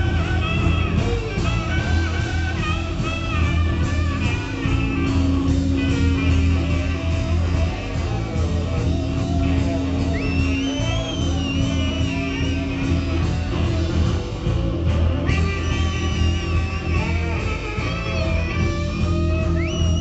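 Live blues-rock band playing: electric guitars, saxophone and drums over a steady bass line, with a lead instrument playing bending high lines about halfway through and again near the end.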